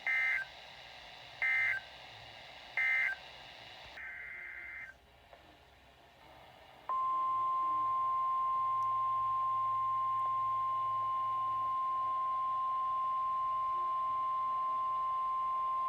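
Three short bursts of warbling EAS/SAME digital data tones about a second and a half apart: the end-of-message code that closes the previous warning. A fainter data burst follows, then about seven seconds in the steady single-pitch 1050 Hz NOAA Weather Radio warning alarm tone starts and holds for about nine seconds, announcing the next warning.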